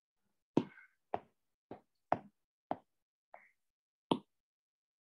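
A series of about seven light taps, roughly half a second to a second apart, with near silence between them.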